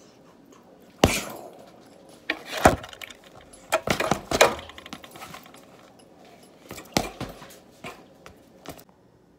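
Punches landing on a hanging heavy bag: irregular thuds, some in quick succession, with the bag's suspension chain jangling.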